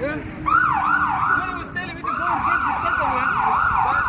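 Emergency vehicle siren in a fast yelp, its pitch rising and falling about three times a second, with a brief break about two seconds in.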